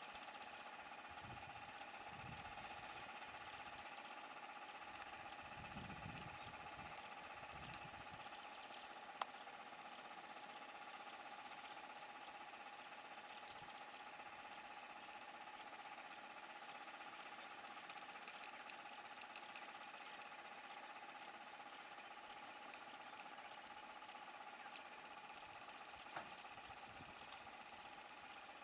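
Insects, likely crickets, chirping steadily in a high, pulsing chorus of about two pulses a second, with a steady lower drone beneath.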